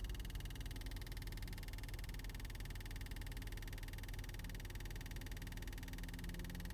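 A 2017 Nissan Sentra SV making an unexplained noise: a fast, even pulsing buzz that keeps on steadily without change.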